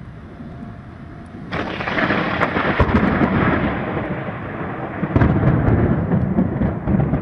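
Thunder rumbling, starting about a second and a half in, easing off, then swelling loud again about five seconds in.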